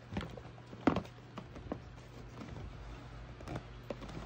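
Handling noise from a pair of sneakers being turned and set down on a cardboard shoebox: a few light taps and knocks, the clearest about a second in, over a steady low hum.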